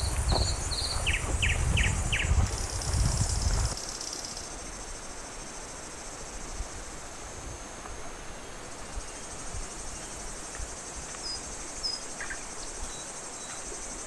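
Insects buzzing steadily in a high register, with short bird chirps: a quick run of four notes near the start and a few more near the end. Footsteps on a dirt path are heard for the first few seconds and stop suddenly about four seconds in.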